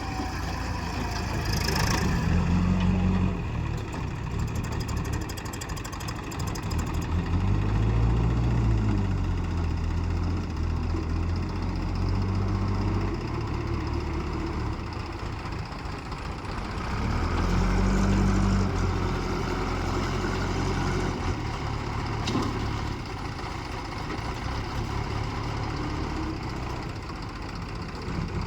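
Diesel engine of a backhoe at work, running steadily and revving up and back down several times as it takes load.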